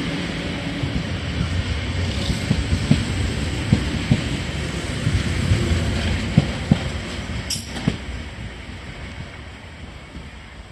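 Renfe train running along the track, its wheels knocking irregularly over the rails above a steady rumble, the sound fading away over the last few seconds.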